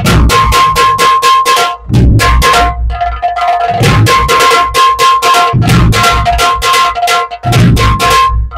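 Muharram dhol tasha drumming: rapid clusters of sharp tasha stick strokes over deep dhol beats in a fast, driving rhythm, with a steady ringing tone beneath.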